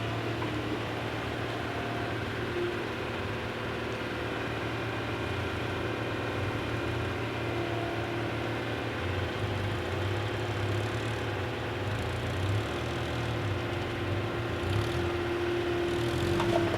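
Heavy construction vehicle's engine running steadily with a constant low hum and a steady whine, and a few short clicks near the end.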